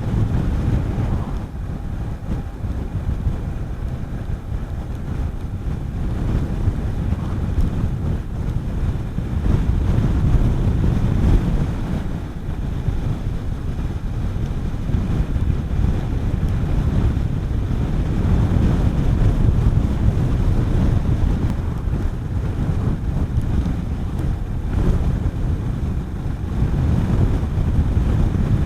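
Wind buffeting the microphone of a Honda CB400SS motorcycle riding at road speed: a steady low rush that swells and eases, with no clear engine note standing out.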